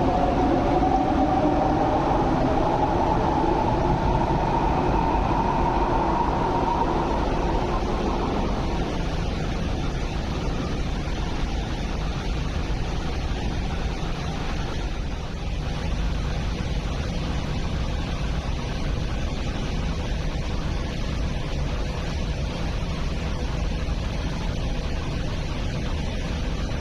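MTR Airport Express electric train moving off along the platform, its traction motors whining with a rising pitch for the first eight seconds or so, then fading into a steady rumble of train and track noise.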